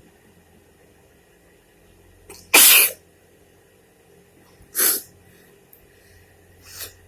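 A woman sneezes once, very loudly, about two and a half seconds in: a sneeze forced by tickling the inside of her nose with a needle. A shorter, quieter burst follows about two seconds later and a faint one near the end.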